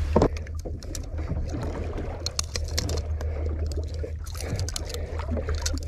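Steady low hum of the boat's engine idling, with many short, irregular clicks and knocks from handling the hook and a lively, freshly landed fish on deck.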